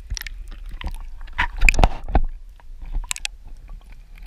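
River water splashing and sloshing around an action camera as it is plunged under the surface, with muffled underwater gurgling. Irregular splashes, the loudest about a second and a half to two seconds in, then a couple more near the three-second mark.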